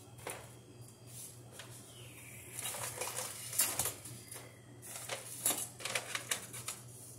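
Small hard parts and tools clinking and rattling as they are rummaged through, in two bursts of clatter with quieter handling between.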